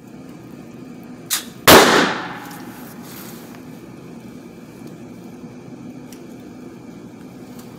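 A single loud 9mm gunshot from a Hi-Point fired in an indoor range, about a second and a half in, ringing on in the booth and hall for most of a second. Just before it there is a shorter, quieter crack. A steady low hum runs underneath.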